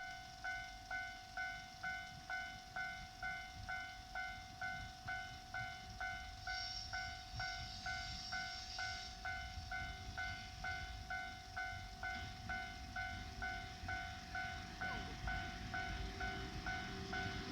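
Japanese railway level-crossing alarm ringing: a steady, evenly repeated electronic ding, a little over two strikes a second, warning that a train is coming.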